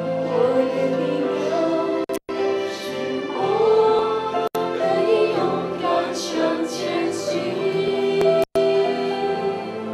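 A group sings a slow worship song over sustained keyboard chords, the voices gliding between held notes. The sound cuts out for an instant three times.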